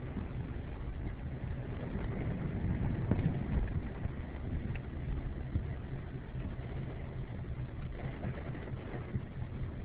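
A car engine running steadily at idle, a low hum with a faint haze of noise over it.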